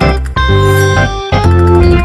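Background music: loud held chords that change twice.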